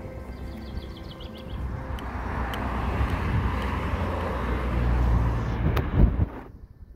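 A road vehicle approaching and passing close by, its rumbling noise growing louder over a few seconds, then cutting off suddenly near the end.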